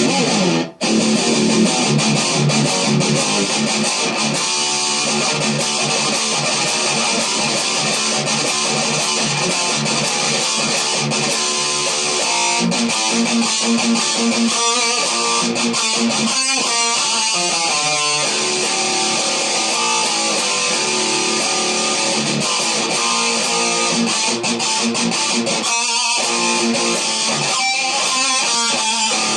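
Telecaster-style electric guitar played through a high-gain, heavily distorted amp sound, riffing in a metal style. It cuts out briefly about a second in, then keeps going with changing riffs and chords.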